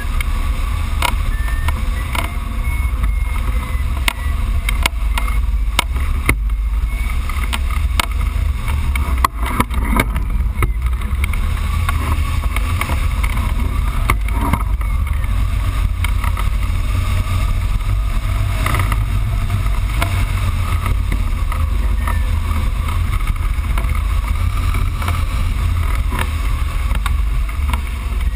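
Airflow buffeting the microphone of a camera mounted on a hang glider in flight: a steady, heavy low rumble of wind with occasional small clicks.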